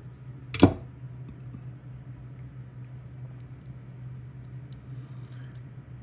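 Hands handling a plastic plug end and its stripped copper wires: one sharp click about half a second in, then faint small clicks and ticks, over a steady low hum.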